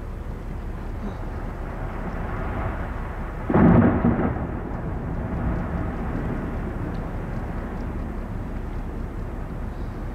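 Tidewater glacier ice cracking and calving: a single loud boom about three and a half seconds in that dies away over about a second, over a steady low rumble.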